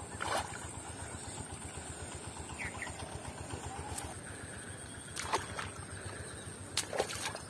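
Soft splashes of bare feet wading through a shallow, muddy pond over a quiet outdoor background, with a few sharper splashes about two-thirds of the way in and near the end.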